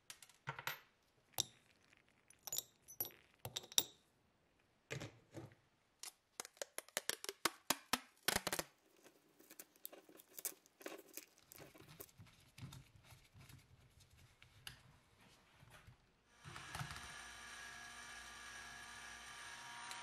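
Small metal lighter parts dropped one after another into a glass jar of abrasive grit, clinking against the glass, followed by lighter clicks of handling as the lid is fitted. After about sixteen seconds a motor starts and runs with a steady hum, spinning the jar to tumble-clean the parts.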